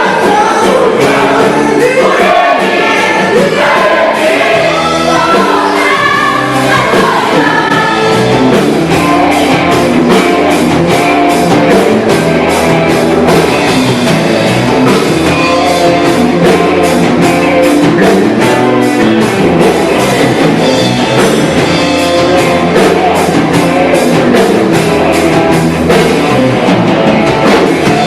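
Gospel choir singing with a live band and drums; the voices stand out for the first eight seconds or so, then the band carries on with a steady drum beat under held chords.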